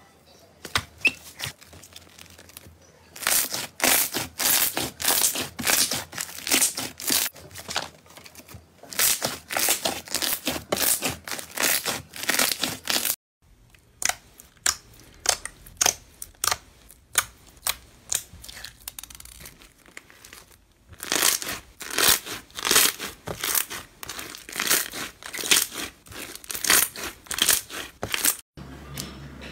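Hands poking and squeezing slime, giving dense runs of sticky crackling pops. First it is a foam slime whose air pockets pop, then, after a brief break a little under halfway, a clear slime packed with small beads crunching as it is squeezed.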